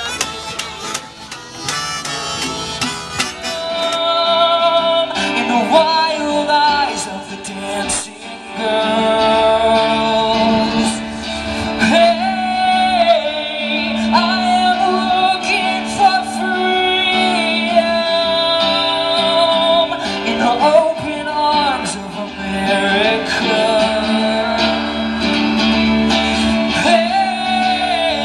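Music: strummed guitar in the first few seconds, then a slow melody of long held notes that slide and waver, with singing, over a steady low drone.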